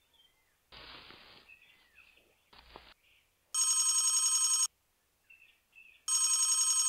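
A telephone ringing twice, a trilling electronic ring about a second long each time. Faint bird chirps and brief rustling come in between.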